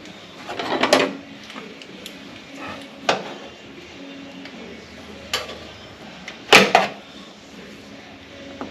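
A few sharp metallic knocks and clanks from tools and sheet-metal body panels being handled and clamped, the loudest a close pair about six and a half seconds in.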